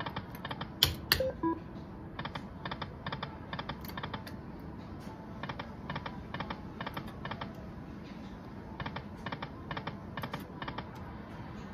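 Dragon Link Golden Century poker machine running its spins: rapid clusters of short clicks as the reels spin and stop, repeating every few seconds. About a second in come two sharper clicks followed by short beeps falling in pitch.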